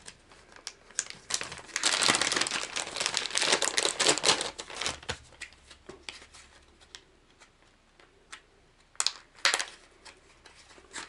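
Plastic lure packaging crinkling as it is opened, densest for about three seconds starting two seconds in. Then scattered clicks and two sharp snaps about nine seconds in as the plastic clamshell tray is handled.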